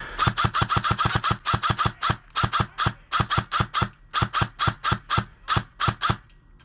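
ICS PAR MKIII airsoft electric rifle fired as rapid single shots, about four to five a second with a couple of brief pauses, each shot a short, sharp snap.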